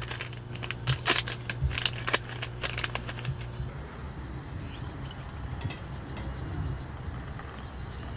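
Paper wrapper of a single-serve drip coffee bag crinkling and tearing open, a quick run of sharp crackles and clicks, over a low steady hum that stops about halfway through. After that it is quieter, and near the end hot water starts to pour from a kettle into a stainless steel mug.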